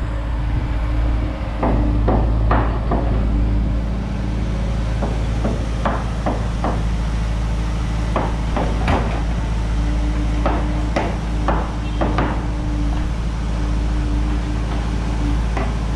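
John Deere mini excavator's diesel engine running steadily while the bucket digs a trench in rocky soil, with repeated short knocks and scrapes from the bucket and stones.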